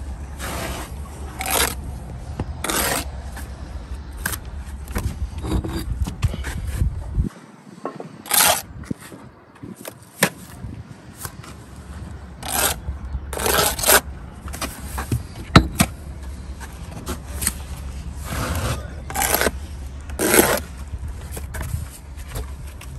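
Steel brick trowel scraping and spreading mortar along the top of a brick wall, in a string of short scrapes at irregular intervals, as bricks are bedded into the mortar.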